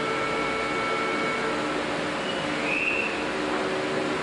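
Steady mechanical hum and whir of a stopped electric train's onboard equipment, heard from the driver's cab. Faint whistling tones fade out about a second and a half in, and a brief high tone sounds a couple of seconds later.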